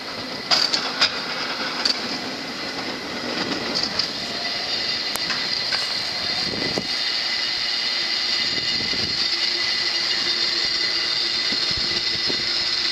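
San Francisco cable car rolling away on its rails, with clanks and clicks in the first two seconds. It settles into a steady whirring hiss with a high hum that grows louder, the running haul cable in the slot between the rails.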